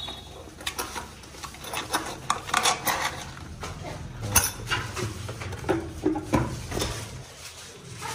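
Metal objects being handled: irregular clinks and clatters, the loudest one about four seconds in.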